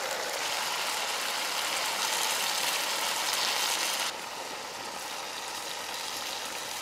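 Frog meat sizzling in a banana-leaf-covered wok over a wood fire, a steady hiss. It drops to a lower level about four seconds in.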